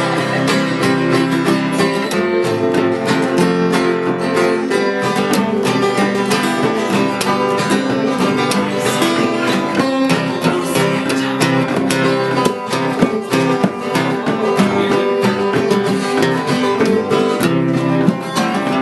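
Two acoustic guitars strummed together in a steady rhythm.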